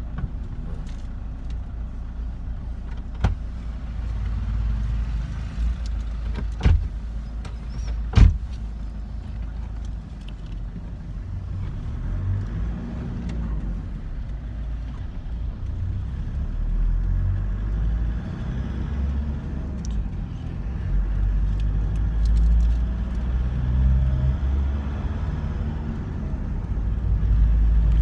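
Car cabin noise while driving: a steady low engine and road rumble that grows louder near the end. Three sharp knocks come in the first third.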